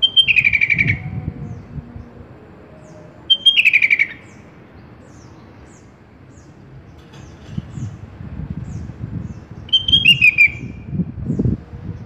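Sooty-headed bulbul (kutilang) calling three times, each call a short high note that drops into a quick rattling, falling phrase. The first two come about three seconds apart and the third follows after a longer pause. Faint thin high chirps are scattered between the calls over a low rumbling background.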